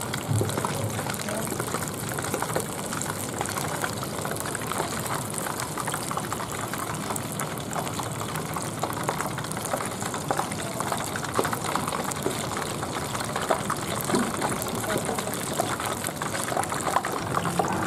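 Hot cooking oil sizzling and crackling steadily in a wok.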